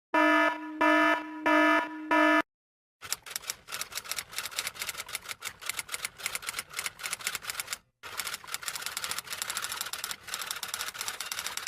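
An electronic alarm beeping four times, then typewriter keys clacking rapidly and unevenly for about eight seconds, with a short pause partway through.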